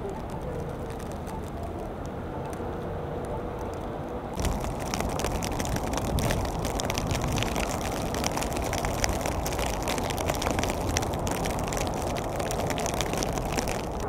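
Downtown street ambience with a low traffic hum. About four seconds in it gives way to louder wind noise on the microphone, with dense crackling ticks, in heavy blowing snow.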